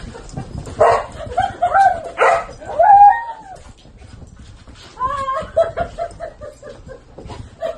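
Siberian huskies vocalizing during rough play: short calls that bend up and down in pitch, loudest between about one and three seconds in, then another run of shorter calls around five seconds in.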